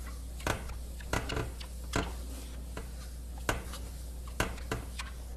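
Damp cloth being wrung out over water: about ten light, irregular clicks and drips over a steady low hum.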